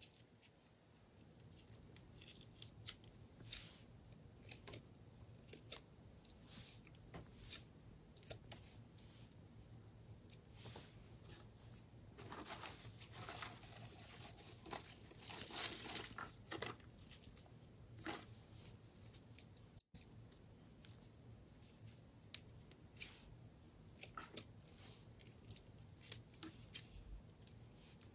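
Scissors snipping through plant stems in short, sharp snips, irregularly about once a second. Dry stems rustle and crackle more loudly for a few seconds around the middle.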